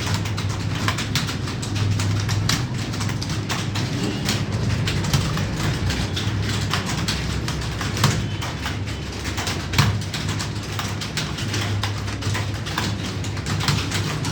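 Rapid, irregular clicking of computer keyboard keys being typed on, over a steady low hum.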